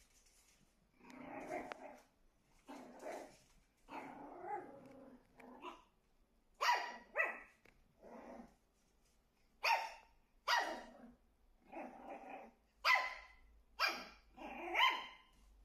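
Shih Tzu puppy growling low at first, then giving short, sharp barks about a second apart at its own reflection in a mirror, which it takes for another dog.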